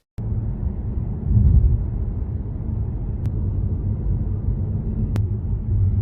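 Strong wind buffeting the microphone outdoors: a loud, gusting low rumble that cuts in abruptly just after the start and swells about a second and a half in, with two faint clicks later on.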